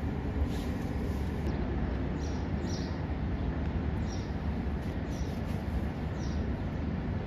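Outdoor ambience: small birds giving short, high chirps every second or so over a steady low rumble.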